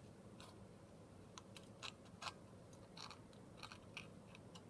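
Thin aluminum sheet from a drink can crinkling and clicking faintly as it is handled, in irregular scattered clicks.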